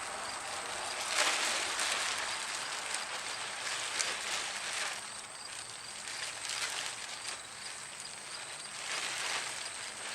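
Plastic tarp rustling and crinkling in swells as its corners are gathered up and tied around a person.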